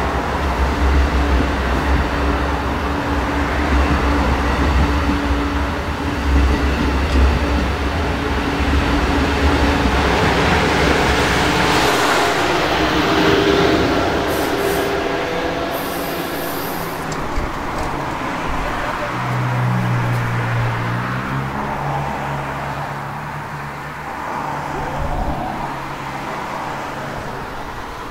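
Amtrak Acela Express high-speed trainset running along the platform. A heavy rumble from the passing cars eases off about halfway through, and the sound fades as the train draws away.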